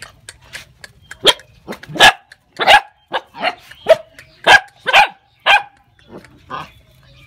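Young dogs barking, a run of about eight short sharp barks roughly every half second, with a couple of fainter barks after they stop about five and a half seconds in.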